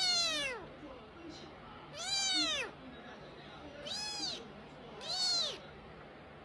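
Young kitten meowing four times, high-pitched calls that each rise and then fall in pitch, spaced one to two seconds apart.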